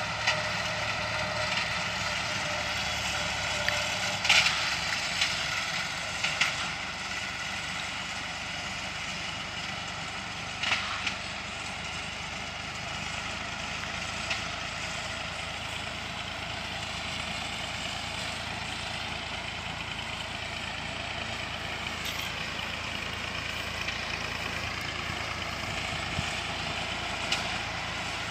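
Engines of motor hay mowers running steadily at high revs while cutting grass, with a few brief sharp clicks or knocks about 4, 6 and 11 seconds in.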